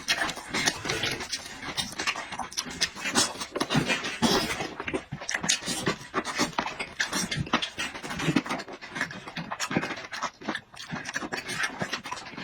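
A man eating with his mouth close to the microphone: chewing and lip-smacking in a dense, irregular run of short wet clicks.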